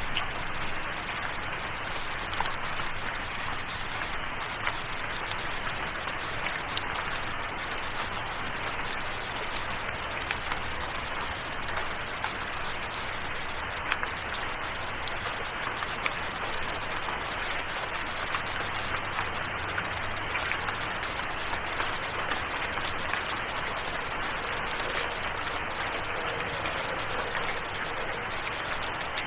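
Steady rain falling, an even wash of noise dotted with many small drop ticks.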